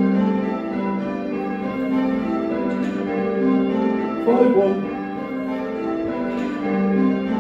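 A ring of six Whitechapel church bells, cast in 1978 with the tenor in G, rung in call changes: the bells strike one after another in a steady rhythm, their tones overlapping as they hum on, heard from the ringing chamber below.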